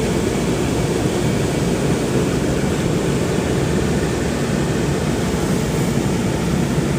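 Steady road and engine noise of a car driving on snow, heard inside the cabin.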